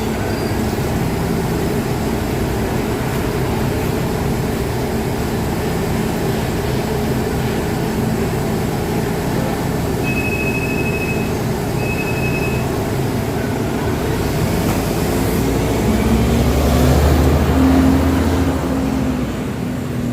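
Steady rumble of heavy vehicles and traffic, with two short high electronic beeps about halfway through. Near the end a large engine grows louder for a few seconds, then eases off, as a bus comes by.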